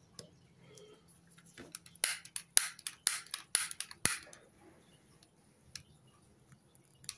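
Piezo igniter of a long flexible-neck lighter clicking over and over as it is worked to light a candle wick: a rapid run of about a dozen sharp clicks lasting some two seconds, the last one the loudest.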